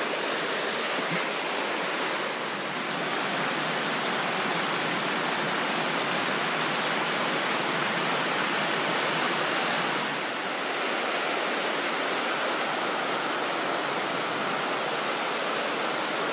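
Mountain stream rushing over rocks: a steady, even rush of water that dips slightly twice, about two and a half and ten seconds in.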